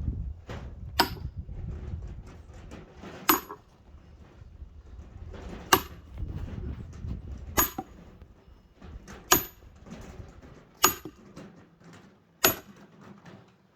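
Wood being chopped: seven sharp blows, one every two seconds or so, each with a brief high metallic ring, as pine firewood is split. A low rumble fills the first few seconds.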